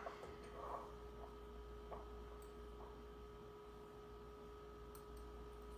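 Near-silent room tone: a faint steady hum with a few soft, faint ticks.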